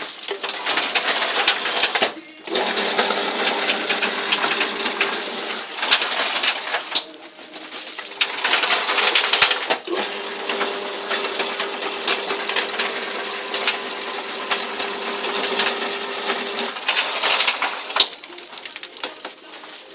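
Mushroom baglog machine running with a dense rattling whir over a steady hum. It stops briefly about two seconds in and again around seven to eight seconds in, then starts up again.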